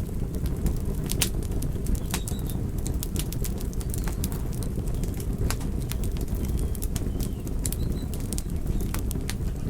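Wood fire burning in a fireplace: logs crackling and popping in quick, irregular snaps over a steady low rumble of the flames.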